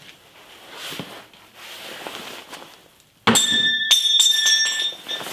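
Quiet handling noises, then about three seconds in a metal part clanks onto a hard surface and rings with clear, steady tones, struck a second time about half a second later.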